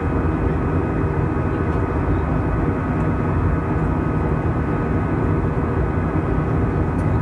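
Steady jet engine and airflow noise inside the cabin of an Airbus A320 in flight, heard from a seat over the wing: an even rush with a few faint steady tones on top.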